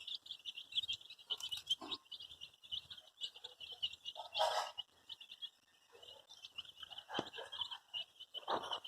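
A group of baby chicks peeping continuously in rapid, overlapping high-pitched peeps. A brief louder rustle comes about halfway through.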